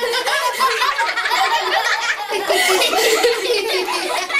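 Several children laughing and giggling together.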